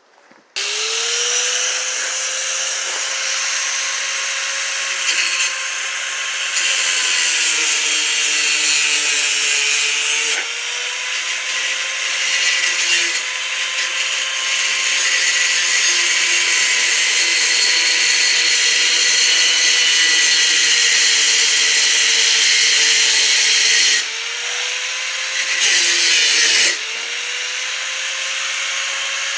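Angle grinder with a cutting wheel starting up about half a second in and running with a steady high whine over a harsh cutting hiss. Its pitch sags a few times as the disc is pressed into the work.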